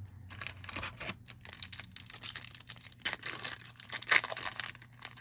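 Foil wrappers of Bowman baseball card packs being torn open and crinkled, with irregular crackling throughout.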